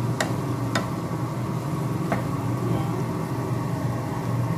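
Wooden spatula tossing shredded cabbage in a pan, knocking against it three times in the first two seconds, over a steady low mechanical hum.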